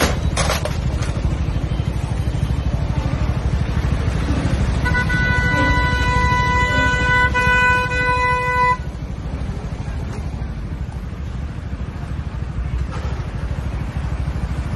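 A vehicle horn sounds one steady held note for about four seconds, starting about five seconds in and cutting off abruptly, over a steady low background rumble.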